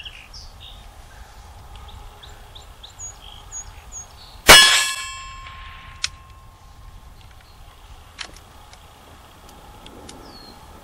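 A single shot from a Rossi RS22 semi-automatic .22 LR rifle about four and a half seconds in, with a ringing tail that fades over about two seconds. Birds chirp faintly, and a couple of faint clicks follow.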